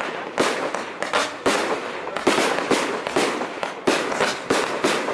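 Fireworks display: aerial shells bursting in quick succession, about two bangs a second, over a steady hiss and crackle.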